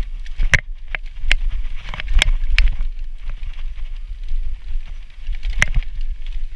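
Downhill mountain bike ridden fast over a dirt trail: a steady low rumble of wind and tyres, broken by about six sharp clacks of the bike rattling over bumps, most of them in the first three seconds and one more near the end.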